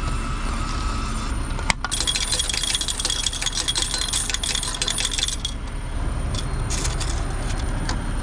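Quarters clattering out in a fast, continuous rattle for about three and a half seconds, starting about two seconds in after a single click, with a few more clinks near the end, over a steady low rumble.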